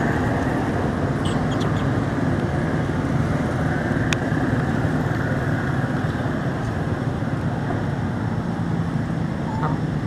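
A steady low rumbling background noise with a faint hum running through it, and a single sharp click about four seconds in.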